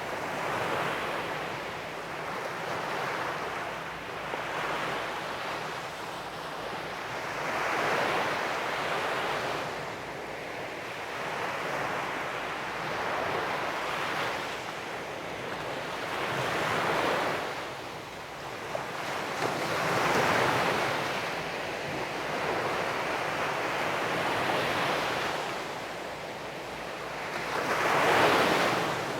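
Sea waves breaking and washing up a beach, the surf swelling and falling back every few seconds, about five larger surges, the loudest near the end.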